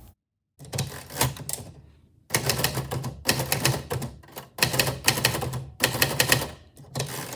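Typewriter keys striking in quick runs of typing, several bursts of rapid clacks broken by short pauses.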